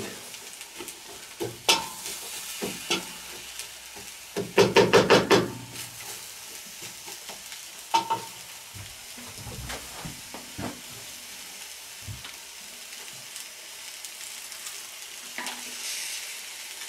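A wooden spoon stirring diced vegetables and rice in a stainless steel kettle, scraping and knocking against the metal, over a steady faint sizzle of the stew braising above a charcoal fire. The loudest part is a quick run of scraping strokes about five seconds in; the rest is scattered single knocks.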